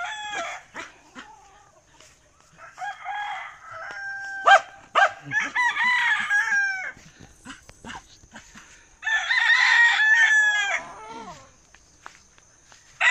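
Several roosters crowing in turn: three long crows, each holding its pitch and dropping at the end, the loudest about nine seconds in.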